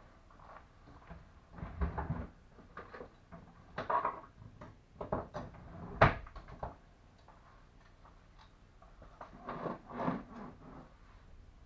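Irregular knocks and clatter of things being picked up and set down on a barber's counter, the sharpest knock about six seconds in.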